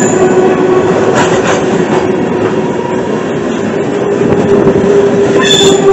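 Freight train of tank cars rolling past close by: a loud steady rumble of wheels on rail, with a steady whining tone from the wheels and a few clicks as trucks cross rail joints.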